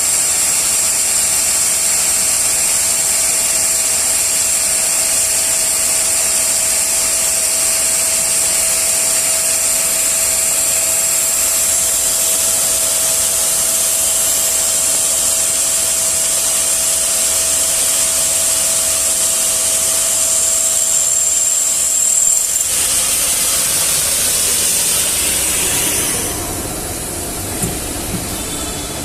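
Intorex TMC 3000 DB five-axis wood CNC machining centre running and machining wood: a loud, steady hiss with a high whine. The steady tones stop about three-quarters of the way through, and the sound drops quieter near the end.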